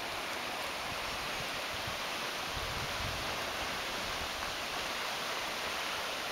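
Steady rush of fast-flowing river water, the river running swift after days of rain.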